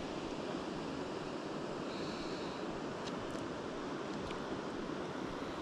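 Small river running over shallows, a steady rush of flowing water.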